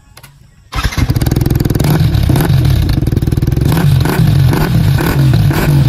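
Yamaha R15 V4's 155 cc single-cylinder engine starting about a second in, then running and being revved in short repeated blips through its refitted exhaust with the dB killer in place.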